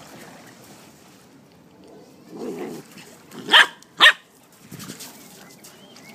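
Kelpie puppy giving two short, sharp barks about half a second apart, a little past halfway through.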